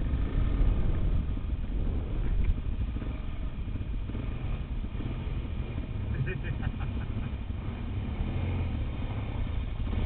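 Motorcycle engine running at low speed as the bike rolls down a gravel slope, heard as a steady low rumble with wind noise on the helmet microphone.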